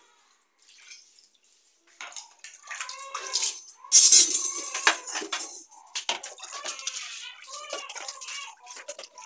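Water poured from a steel pot splashing over a gas stove burner and cooktop, loudest in a sudden splash about four seconds in.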